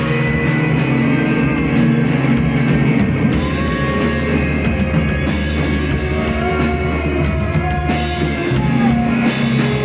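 Rock band jamming over a sustained low drone tone: a drum kit keeps a steady beat while gliding melodic lines rise and fall above the held note.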